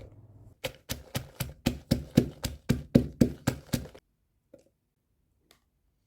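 A run of about a dozen even, hard knocks, about four a second, that stops suddenly about four seconds in, like a pestle pounding food in a mortar.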